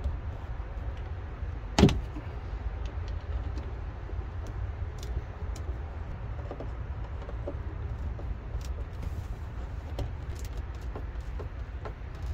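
Small clicks and taps of hand work as a plastic marine speaker is pressed into a fibreglass boat panel and screwed in place, with one sharp knock about two seconds in. A steady low rumble runs underneath.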